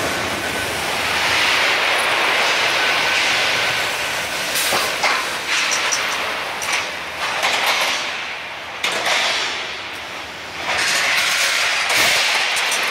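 Automatic rebar processing line running: steel bars moving along the powered roller conveyors and chain transfers, a steady loud mechanical noise with occasional sharp metallic clanks. The noise eases for a couple of seconds about eight seconds in, then comes back at full level.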